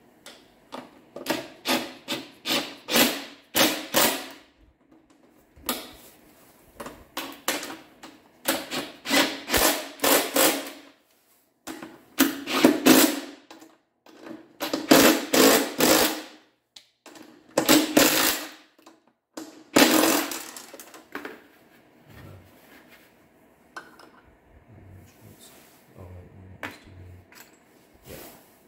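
Ryobi ONE+ cordless impact driver hammering bolts home in about seven short bursts of rapid impacts, fastening the chain rail to a garage door opener head. After about twenty seconds only faint clicks of handling remain.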